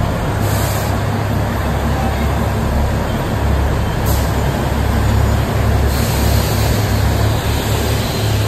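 Narrow-gauge diesel locomotive running with a steady low engine sound as the toy train rolls slowly along the platform.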